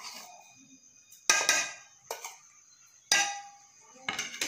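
A steel spoon scraping and knocking against a china plate and a steel bowl as spice powders and flour are tipped onto sliced okra: three clinks, each with a short ring.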